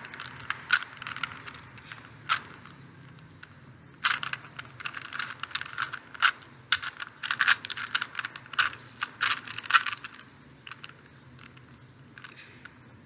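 3x3x3 Rubik's Cube being turned by hand: quick runs of plastic clicks and clacks as the layers are twisted. A pause of about a second and a half comes a few seconds in, followed by a dense run of turns that thins out near the end.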